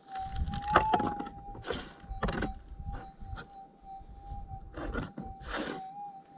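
Minelab gold detector's steady threshold tone, wavering up briefly about a second in, over repeated scrapes and crunches of dry soil being dug and scooped by hand close to the coil while a gold nugget is pinpointed.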